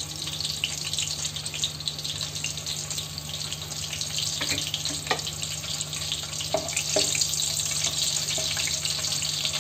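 Green chillies, a cinnamon stick and cardamom sizzling in oil in a wok, a steady hiss with small scattered crackles: whole spices tempering in oil that is not very hot. A wooden spatula stirs them near the end, over a steady low hum.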